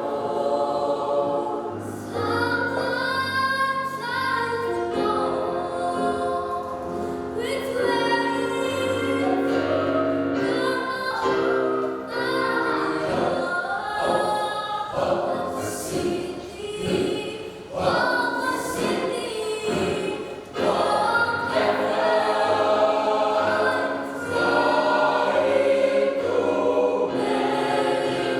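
Youth choir singing a church song in harmony, several voice parts together.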